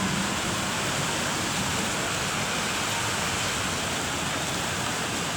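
Heavy rain falling steadily, a constant even hiss of rain on the street.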